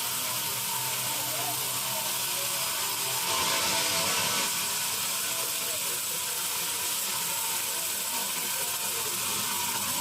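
Sawmill machinery running steadily with a dense, hissing noise, growing louder for about a second around a third of the way in.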